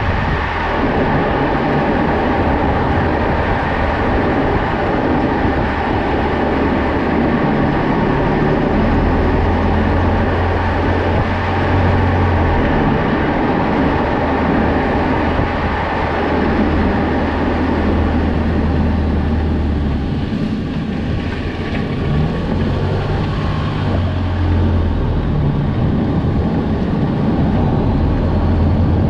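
Toyota Vanguard 240S on the move: a continuous low drone from its 2.4-litre 2AZ-FE four-cylinder engine over steady road noise, swelling and easing a few times.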